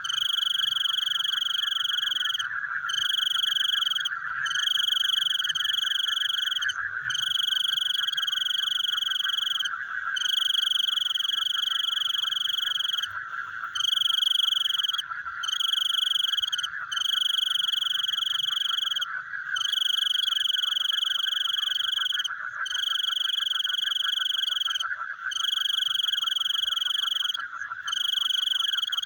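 Night chorus of frogs with insects: a continuous pulsing, buzzing trill underneath a higher, shrill call that holds for one to three seconds at a time, broken by short gaps.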